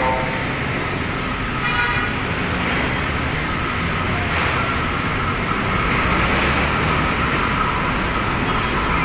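Steady hum and rumble of a standing LRT-1 4th-generation light-rail train and the station around it. There is a short pitched tone about two seconds in, and a thin steady whine from about four seconds on.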